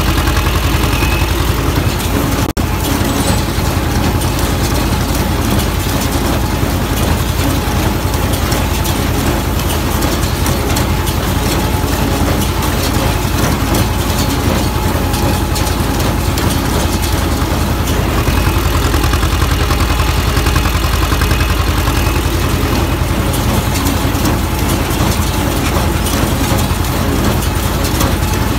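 T-25 tractor's two-cylinder air-cooled diesel running steadily while it pulls and drives a Welger AP 45 small square baler. The baler's mechanism clatters along with it.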